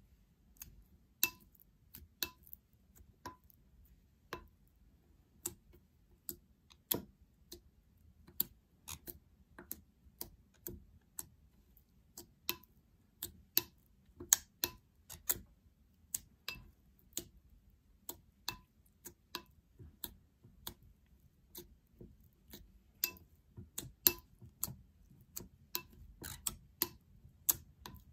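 Slime being stirred with a small spatula in a glass bowl: irregular sharp clicks and ticks, roughly one or two a second, as the thickening slime and spatula work against the glass.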